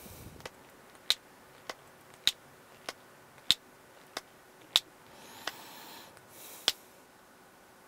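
Countdown timer ticking: sharp tick-tock clicks about every 0.6 s, every other one louder. A soft breathy rustle comes in about five seconds in.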